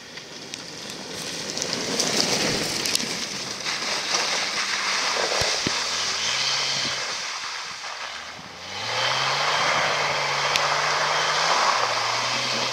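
Jeep Cherokee XJ driven hard on a dirt track, its engine running under load with tyres crunching and throwing up dirt. The noise builds over the first two seconds as it comes close; about nine seconds in the engine revs rise, hold, then drop near the end.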